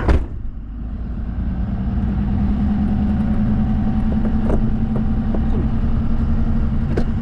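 Vehicle engine running steadily at an even low pitch, with a sharp thump right at the start and a few faint clicks.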